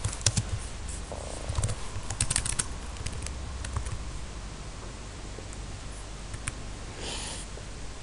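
Typing on a computer keyboard: a quick run of key clicks in the first few seconds, then only scattered clicks, over a low steady hum.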